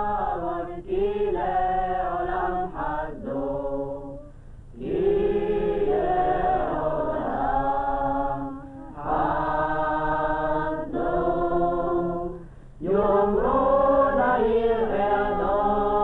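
A choir singing, several voices together, in phrases with brief breaks between them.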